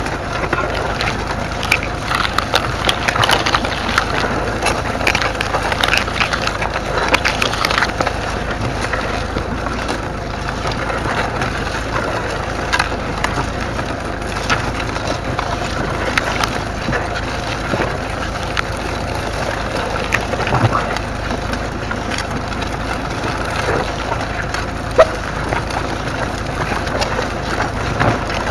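Ferguson plough body cutting through the ground: soil, clods and stubble scraping and crackling against the steel as the furrow is turned, a dense steady rush broken by frequent sharp snaps.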